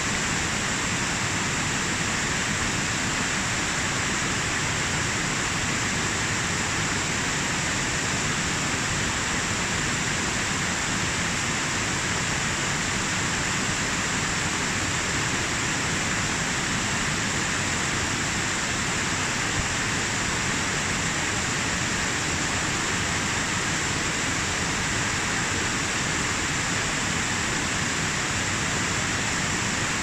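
Mountain stream cascading over mossy boulders in a rush of white water, a steady full rushing sound that doesn't vary.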